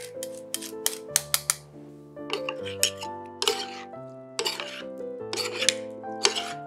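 Background instrumental music with held notes, over repeated short clicks and clinks of kitchen utensils against dishes or cookware, with a few brief scraping sounds.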